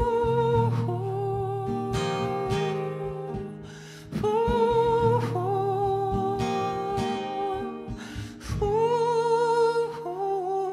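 Acoustic guitar strummed under wordless sung vocals: three long held, wavering notes, one about every four seconds. The song ends and the sound dies away near the end.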